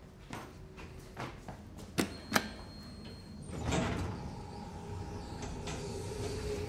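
Lift's metal sliding doors moving, preceded by a few sharp clicks, the two loudest about two seconds in. A steady hum comes in from about three and a half seconds.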